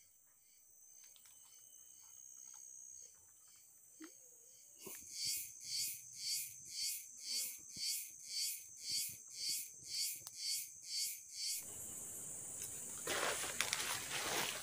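Forest insects calling. A high, rhythmic insect call pulses about twice a second through the middle, then gives way abruptly near the end to a steady hiss with crackles.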